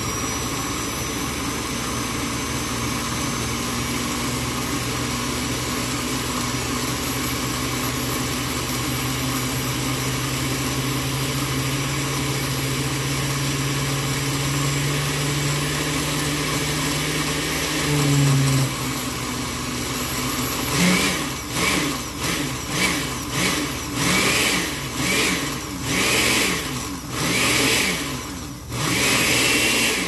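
Countertop blender motor running steadily as it mixes a thin batter, its pitch creeping up slightly. About two-thirds of the way through it switches to pulsing, speeding up and slowing down about once a second.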